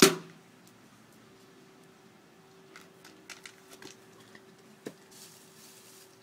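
A wrist slingshot shot: one sharp, loud crack at the start with a short ringing tail, followed by a few faint clicks and rustles.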